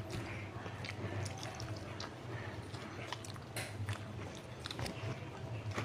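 Close-miked eating by hand: chewing and fingers mashing rice with curry on a banana leaf, a string of irregular short wet clicks and smacks over a steady low hum.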